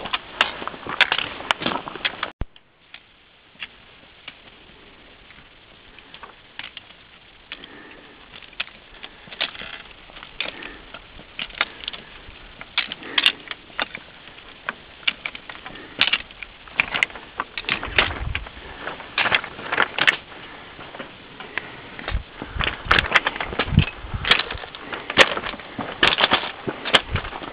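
Footsteps crunching on a loose, stony mountain trail at walking pace: irregular crunches and sharp clicks of boots on rock and gravel. The sound drops out briefly a little after two seconds in, stays quieter for a few seconds, then grows busier.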